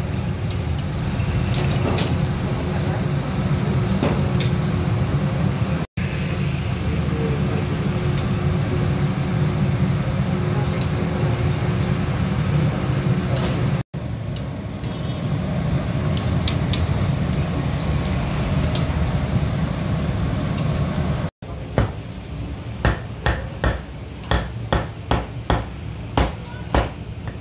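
A steady low rumble from the street grill stall, with a few light clicks of metal tongs against the grill grate. Near the end a heavy knife chops grilled pork belly on a wooden chopping board, about nine quick sharp knocks roughly half a second apart, louder than the background.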